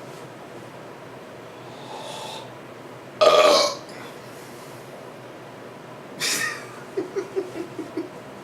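A man belching on purpose after drinking a lot of soda: one loud belch about three seconds in, a shorter belch just after six seconds, then a quick run of about six short low pulses.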